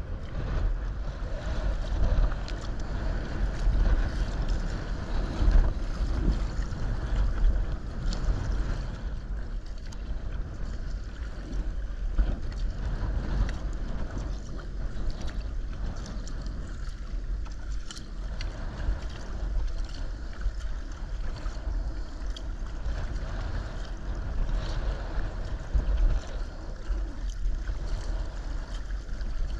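Sea kayak paddling: paddle blades dipping and splashing and water washing along the hull, with wind buffeting the microphone in a low rumble.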